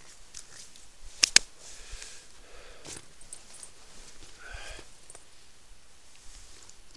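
Two sharp clicks in quick succession about a second in, then only faint, scattered small sounds.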